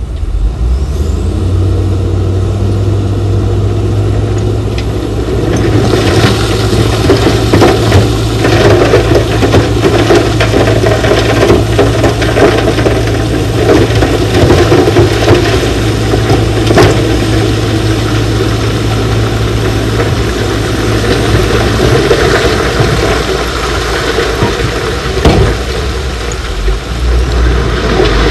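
Heavy diesel construction machine's engine running steadily under load, its low note dropping away about three-quarters of the way through. From about six seconds in, a dense crackling rattle of loose rock grinding and tumbling.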